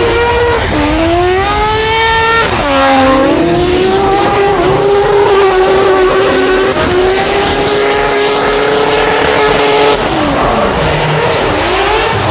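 Mazda 20B three-rotor rotary engine in a drift car revving hard. Its pitch climbs, dips sharply about two and a half seconds in, then holds high and steady for several seconds, drops off near the end and rises again.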